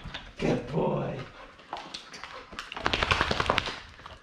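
A Vizsla gives a short whine about half a second in. Near the end comes a burst of scuffling and rustling as the dog scrambles out of a plush, fleece-lined cave dog bed.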